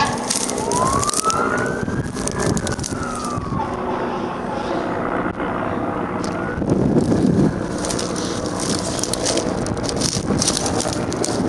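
An emergency vehicle siren wails once, rising and then falling in pitch, over the first few seconds. After that comes a steady rushing noise with scattered crackles and a brief louder rumble about seven seconds in.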